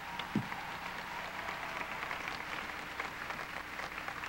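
Large audience applauding steadily, dense clapping, with one brief louder sound about half a second in.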